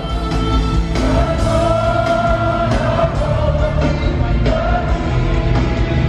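Music with a singing voice holding long notes over a heavy bass.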